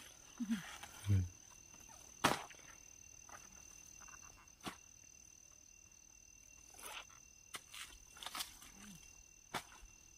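A cleaver knocks sharply into a banana stem three times, with fainter scraping and rustling as its layers are worked, over a steady high insect drone. Two short low calls sound near the start.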